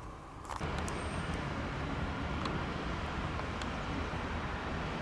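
Steady road and traffic noise from cars, coming up suddenly about half a second in and then holding level.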